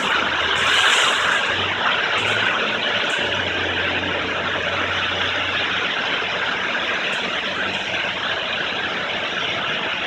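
Steady rush of water and foam from a touchless in-bay automatic car wash's foam waterfall pouring and spraying onto a car, with a low steady hum underneath.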